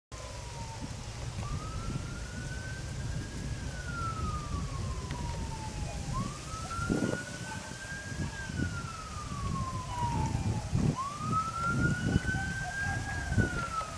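A wailing siren going through slow rise-and-fall cycles, each climbing in pitch, holding briefly and then sliding down, about every four to five seconds. A low rumbling noise runs underneath.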